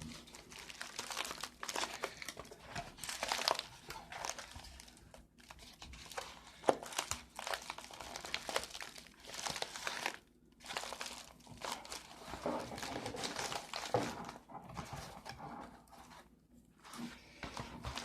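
A cardboard shipping box and its packaging being opened by hand: irregular crinkling, rustling and tearing in fits and starts, with one sharp click about seven seconds in.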